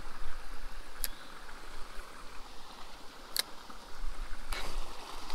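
Outdoor ambience with a fluctuating low rumble on the microphone, broken by two short, sharp high clicks about a second in and past the three-second mark, and a fainter one near the end.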